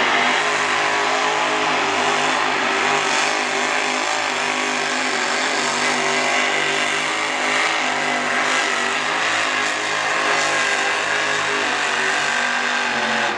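Supercharged small-block V8 of a mini rod pulling tractor running at high revs under full load as it drags the weight sled. A loud, steady engine note that wavers only slightly in pitch.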